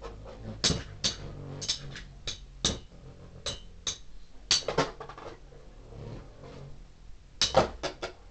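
Two Beyblade spinning tops clashing in a plastic stadium: irregular sharp clacks as their metal fusion wheels strike each other and the stadium walls, with a quick run of loud hits near the end as one top is knocked out to the rim.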